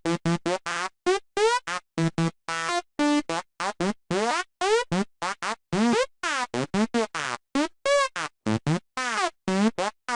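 Sylenth1 software synthesizer playing a high-pitched psytrance night full-on lead: a fast run of short staccato notes, about four or five a second, each sliding upward in pitch. The notes change pitch from one to the next, forming a repeating riff.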